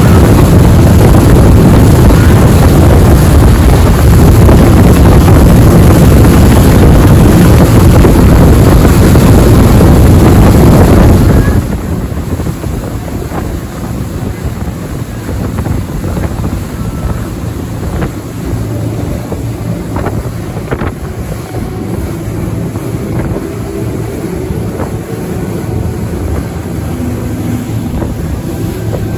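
Rigid inflatable boat running at speed, its engine hum buried under heavy wind buffeting on the microphone and water rushing past the hull. About eleven seconds in the sound drops abruptly to a quieter, steady engine hum with water swishing and light slaps against the hull.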